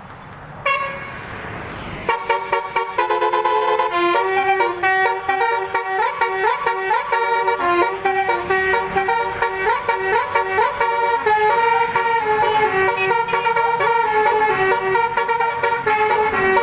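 Basuri telolet multi-tone horn playing a fast melody of stepping notes, one after another without a break, after a short hiss in the first couple of seconds.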